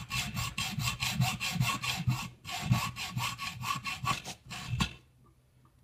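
Hacksaw cutting through one side of a metal nut held in a small vise, with quick, even back-and-forth strokes that stop about five seconds in.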